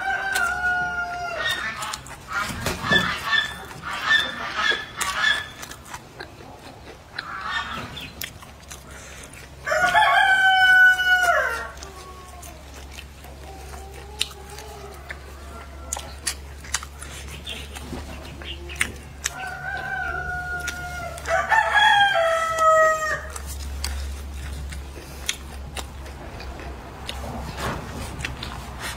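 Rooster crowing several times, the loudest crow about ten seconds in and more crowing about twenty seconds in, with chickens clucking between the crows.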